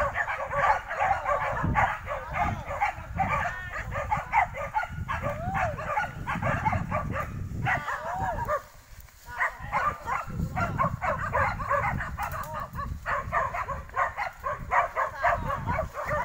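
A pack of hunting dogs barking and yelping over one another without let-up as they bay a wild boar at close quarters, with a short lull about halfway through.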